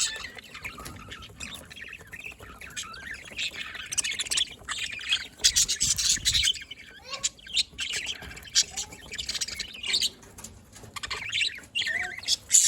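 Pet budgerigars chirping, a near-continuous run of short high calls.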